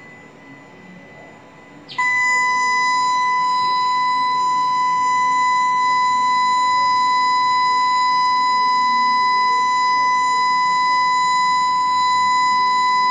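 Loud, steady electronic tone from a Sonotron therapy device, switching on abruptly about two seconds in and holding one unchanging pitch.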